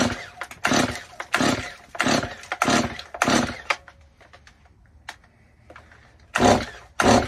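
A brand-new Stihl MS170 two-stroke chainsaw being pull-started: quick strokes of the recoil starter cord, about one every half second, with the engine turning over but not catching because no fuel has yet reached the carburetor. Six pulls, a pause of a couple of seconds, then two more near the end.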